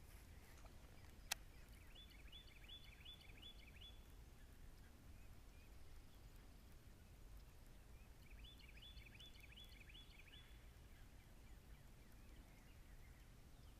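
A songbird singing faintly, two short phrases of quickly repeated high notes several seconds apart, over a low steady rumble, with a single sharp click about a second in.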